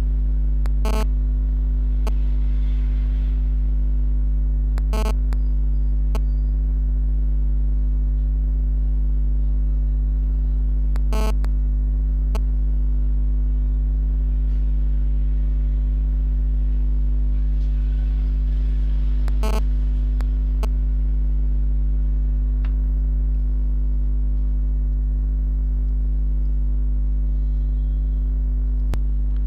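Steady electrical mains hum, a loud low drone with a buzz of overtones above it, broken by a handful of sharp clicks.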